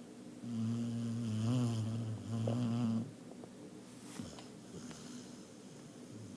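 Snoring: one long, steady-pitched snore starting about half a second in and lasting some two and a half seconds, then quiet.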